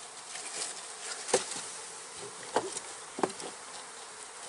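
Honey bees buzzing steadily from an opened package of bees, with three sharp knocks in the middle as the wooden package and its tin feeder can are handled; the first knock is the loudest.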